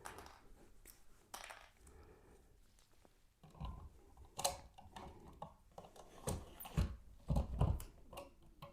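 Faint, irregular small clicks and knocks of a cheap voltmeter and its test probes being handled, starting a few seconds in.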